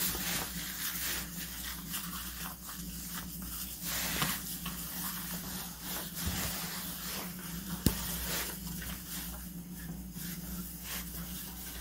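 Quiet rubbing and rustling of hands working lather into a wet dog's coat, over a steady low hum, with one sharp click about eight seconds in.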